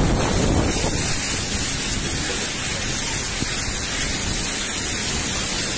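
A vehicle driving through floodwater on a street: a steady rush of water spray thrown up by the tyres, over a low rumble of engine and road noise.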